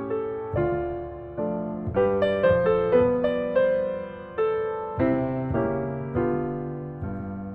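Background piano music: gentle chords and melody notes struck one after another, each fading away.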